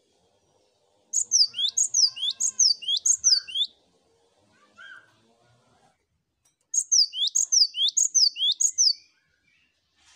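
Cinereous tit (gelatik batu) singing: two bouts of a high, quickly repeated two-note phrase, about two phrases a second, each bout a few seconds long with a pause between.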